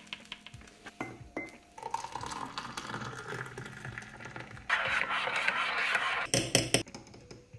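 Making a mug of hot cocoa: crockery and a spoon clink, and a steady rushing noise runs for about a second and a half past the middle, over soft background music. A few sharp clinks come near the end.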